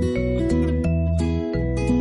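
Karaoke backing track playing from a videoke machine: an instrumental with plucked, guitar-like notes over a steady bass line, with no singing.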